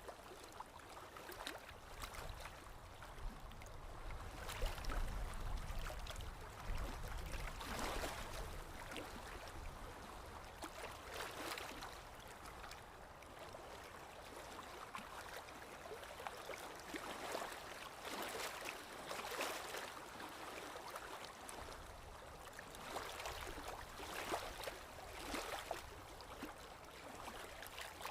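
Paintbrush strokes on canvas: an irregular series of short scratchy swishes as acrylic paint is brushed on.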